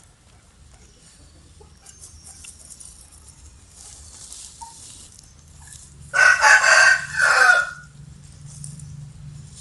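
Rooster crowing once: a loud two-part call about six seconds in, after a stretch of faint hiss.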